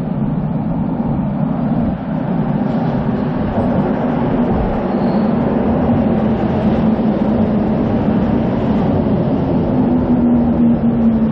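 Subway train pulling into an underground station, a steady rumble of wheels and running gear that swells a few seconds in as the cars slide past the platform. A low hum grows stronger near the end.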